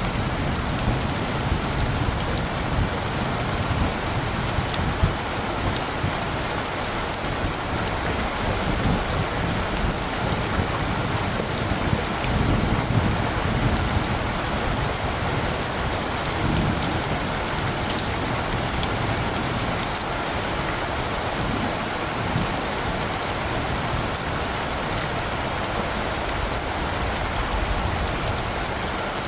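Steady rain falling, a dense hiss with fine pattering drops. A low rumble of light thunder swells in and out underneath, most strongly about a third and half of the way through.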